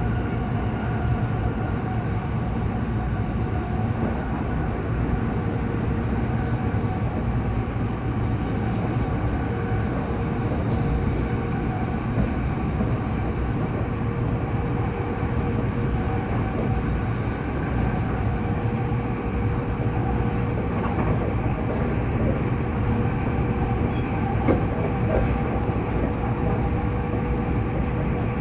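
Running noise of an E257 series 0-bandai electric limited express train heard from inside the carriage: a steady low rumble of wheels on rail with a faint steady hum, unchanging throughout.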